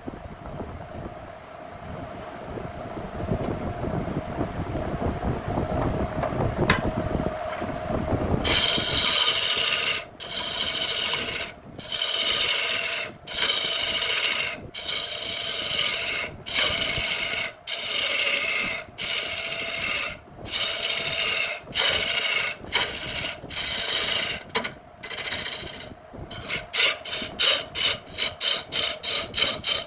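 Wood being rasped by hand in repeated back-and-forth strokes, about one stroke every second and a half, quickening to short rapid strokes near the end. Before the strokes start there is a steady hum with a rumble that builds over the first eight seconds.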